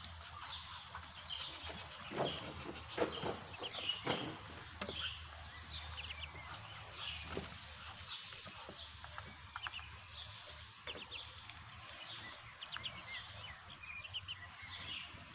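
Muscovy ducklings peeping, a steady stream of short, high peeps as they feed. A few sharp taps of bills pecking grain in the feed trough stand out two to four seconds in.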